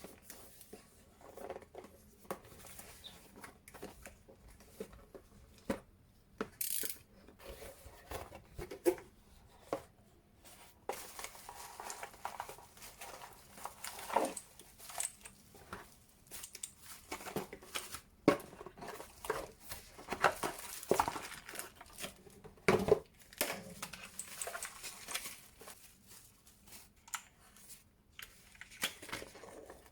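Unboxing sounds: a cardboard box and plastic packaging being opened and handled, with irregular crinkling, rustling and tearing, and scattered small knocks and clicks.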